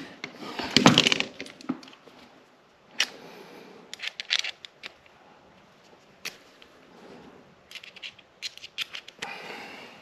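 Hand tools clicking, tapping and scraping while working at an electrical outlet box: a dense run of sharp clicks in the first second or so, single clicks every second or two, and another quick cluster of clicks near the end.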